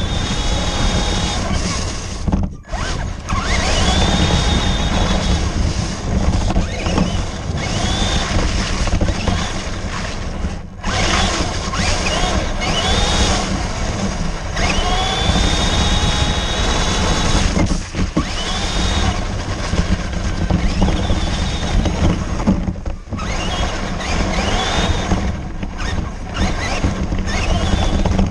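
Onboard sound of a radio-controlled car driving through slush and wet snow: its motor whines up in pitch again and again as it speeds up, over a steady hiss of tyres and spray. The sound drops out briefly four times.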